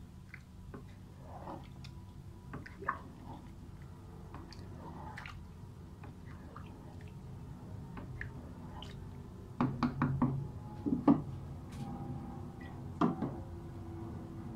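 Wooden spoon stirring wet rice in a coated cooking pot, with soft scrapes and light clicks against the pot. A cluster of louder knocks comes about ten seconds in and another near the end, as the spoon and pots are handled.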